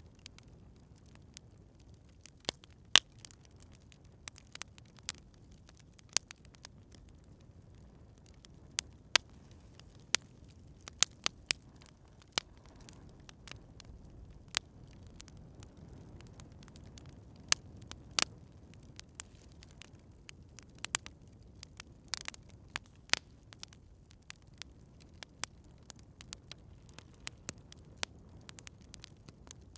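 Campfire crackling: irregular sharp pops and snaps, some much louder than others, over a soft low rush of burning wood.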